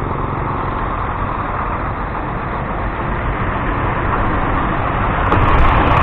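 Large shuttle bus approaching and passing close by, its engine and road noise growing louder near the end.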